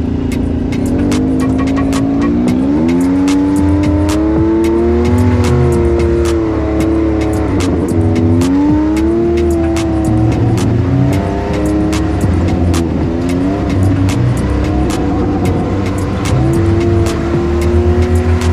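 ATV engine being ridden on a trail, its pitch rising and falling again and again as the throttle is opened and eased, with many short sharp clicks over it.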